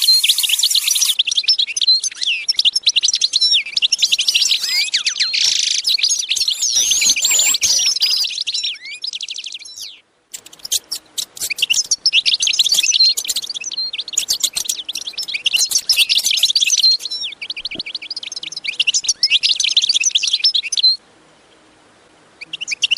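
Small songbirds chirping and singing in rapid, dense trills. The song breaks off briefly about ten seconds in and again near the end.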